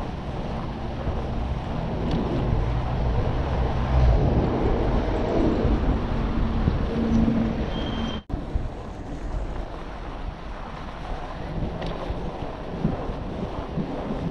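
Wind rushing over the microphone of a camera on a moving bicycle, with a low rumble underneath. The sound cuts out suddenly for a moment about eight seconds in.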